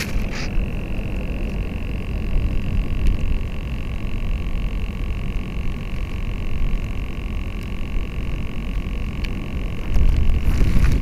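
Wind rumbling on the microphone of a camera fixed to a model sailplane resting in grass, with a steady high electrical buzz over it. The wind rises near the end.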